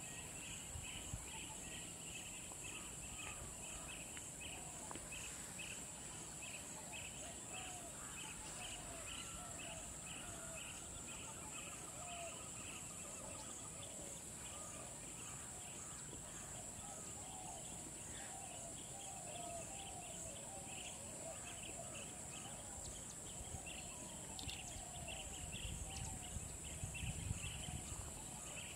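Countryside wildlife ambience: a steady high-pitched insect drone, an insect or bird chirping about twice a second, and scattered short bird calls, with a low rumble rising near the end.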